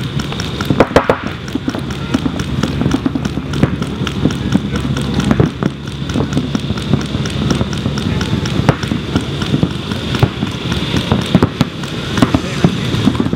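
Paintball markers firing in rapid strings of sharp pops, several guns going at once.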